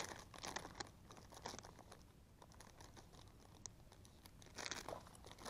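Faint scattered clicks and crinkling of fishing tackle being handled while a lure is changed, with a louder burst of rustling near the end.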